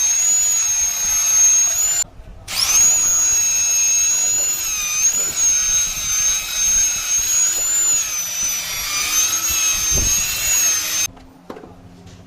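High-pitched whine of a small electric power tool motor. It stops briefly about two seconds in, spins back up with a rising pitch, dips in pitch now and then under load, and cuts off near the end.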